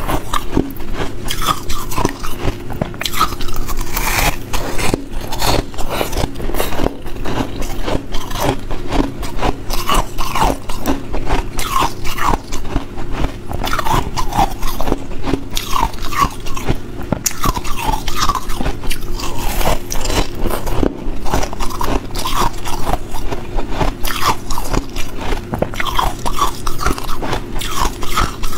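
Close-miked ice eating: teeth biting and crunching through a chunk of frozen ice, then chewing the pieces, with rapid crackling crunches throughout.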